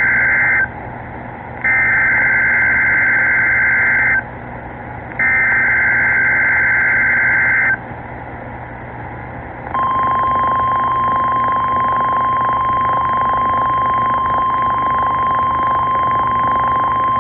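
NOAA Weather Radio weekly test heard over a weather radio receiver: the end of one Specific Area Message Encoding (SAME) header burst, then two more full bursts of screeching two-tone data about a second apart. After a couple of seconds of receiver hiss, the steady 1050 Hz Warning Alarm Tone starts about ten seconds in and holds.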